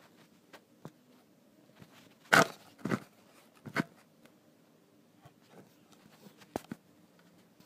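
A few scattered knocks and rubs, the loudest about two and a half seconds in and another near the end, over quiet room tone: fingers handling the phone that records.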